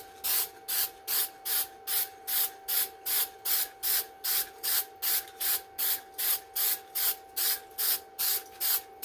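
Aerosol spray-paint can sprayed in short, even bursts of hiss, about two and a half a second.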